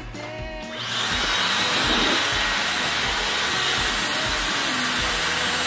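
Handheld hair dryer switched on about a second in, then running steadily, blowing air at a face: an even rush of air with a faint high whine.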